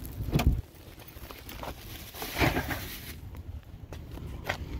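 Footsteps on pavement and a plastic shopping bag rustling, with a few dull knocks as a car door is opened near the end.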